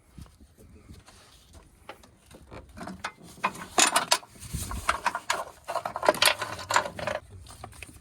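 Hand socket ratchet clicking in quick runs as a bolt is turned, starting a few seconds in.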